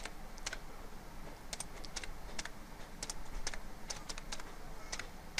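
Computer keyboard being typed on slowly, a dozen or so separate keystroke clicks at uneven spacing.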